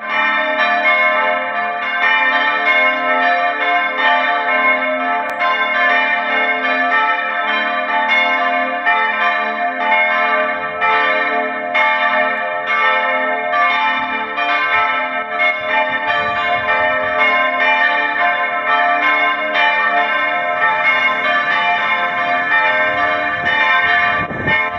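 Church bells of medium-heavy rib cast by the Petit & Gebr. Edelbrock foundry ringing together from the tower, their strikes overlapping steadily into a continuous peal.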